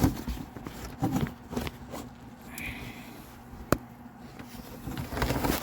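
Hands handling parts at a car's headlight housing: scattered light knocks and rustles, with one sharp click nearly four seconds in.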